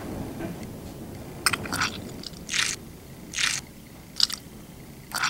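Maple syrup squirting from an aerosol spray-can nozzle onto pancakes, in a series of short hissing spurts about one a second.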